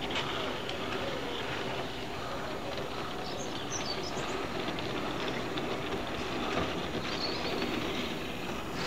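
Garden-scale model steam locomotive pulling timber wagons along the track: a steady running sound of wheels on the rails.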